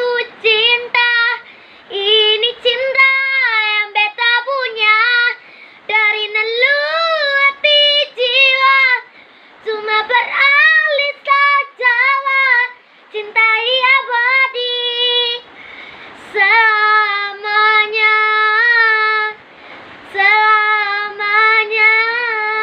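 A boy singing a love song in Ambonese Malay without accompaniment, his high voice carrying the melody in phrases broken by short pauses for breath.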